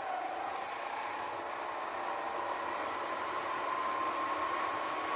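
Go-kart engine running under throttle as the kart accelerates out of a corner, its note rising slowly and steadily, over a constant hiss of wind and track noise.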